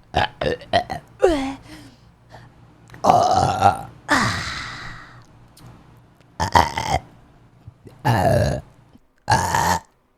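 A person burping again and again: about five loud burps with short pauses between them. The one about four seconds in is long and drawn out.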